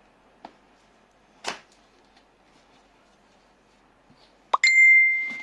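Unboxing handling sounds: a couple of light clicks and a brief swish of packaging, then near the end a sharp click followed by a loud, clear ringing ding that fades over about a second.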